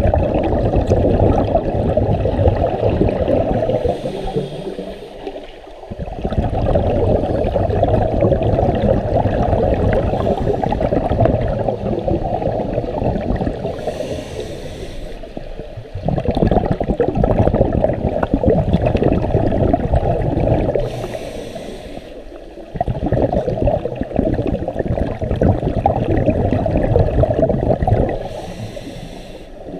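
Scuba diver breathing through a regulator, heard underwater: long stretches of rumbling exhaled bubbles, each several seconds long, broken about every seven seconds by a short hiss as the diver inhales.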